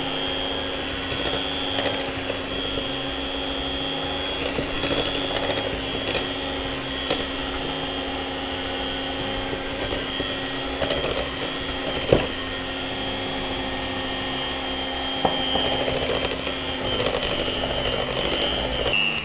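Electric hand mixer running at a steady speed, its beaters whisking cake batter in a glass bowl as flour goes in, with a sharp click about twelve seconds in. The motor cuts off at the very end.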